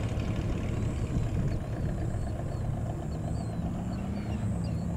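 RevX weight-shift microlight trike's propeller engine running on its takeoff roll, a steady drone that rises slowly in pitch from about a second and a half in as the power comes up. Small birds chirp over it.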